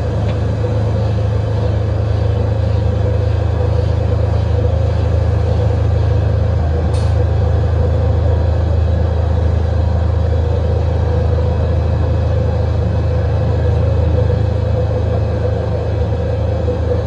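Takamaz XT-8MY CNC lathe running steadily, a constant low hum with a steady mid-pitched tone.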